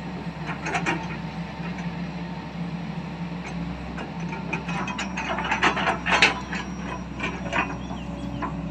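XCMG hydraulic excavator running steadily while its log grapple handles rubberwood logs, with a brief burst of clattering knocks about a second in and a longer run of knocks and clatter from about five to eight seconds in, loudest around six seconds.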